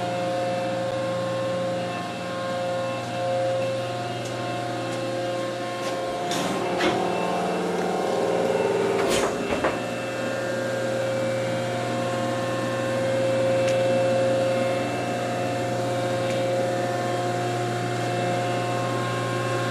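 Old Rockford hydraulic planer-type milling machine running, its electric motor and hydraulic pump giving a steady hum with a constant whine above it. A couple of short knocks come about six and nine seconds in.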